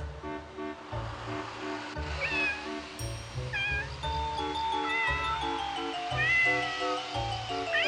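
A cat meowing about five times, drawn-out calls that rise and fall, over background music with a steady beat.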